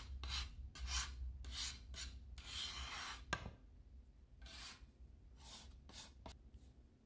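Metal bench scraper scraping dough and flour off a countertop in a run of short strokes, with one longer scrape about two and a half seconds in and a sharp tap just after it. The strokes grow fainter in the second half.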